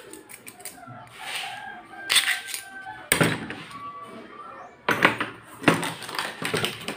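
Metal doorknob parts and a clear plastic clamshell package being handled on a work table: a run of small clicks and clatter, with several sharper knocks.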